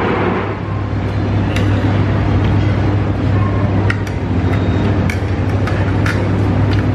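Steady low hum of machinery and background rumble, with a few light clicks of a metal spoon and chopsticks against a plate.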